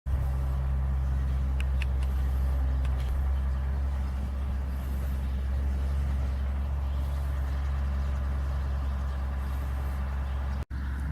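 A steady low mechanical drone, with two faint clicks about a second and a half in and a brief dropout near the end.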